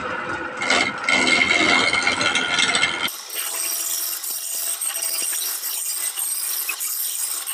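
Wood lathe turning a log while a hand-held turning tool cuts into the spinning wood, with a steady rattling, scraping chatter of the cut. About three seconds in, the sound changes abruptly, losing its low end and turning thinner and hissier.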